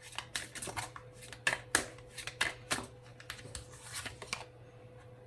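Tarot cards being shuffled and handled: a run of quick flicks and taps that stops about four and a half seconds in.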